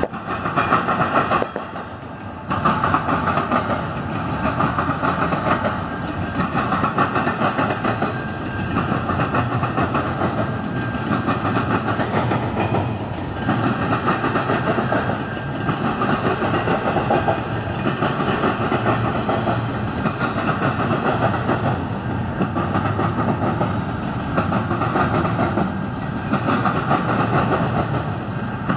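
Double-stack intermodal freight train rolling past: steel wheels clattering over the rails in a continuous rumble, swelling and easing in a rhythm about every two seconds as the car trucks go by.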